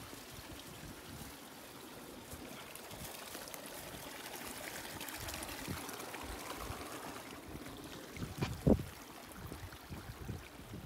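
Steady rushing noise with scattered soft low bumps, and one sharp knock about eight and a half seconds in.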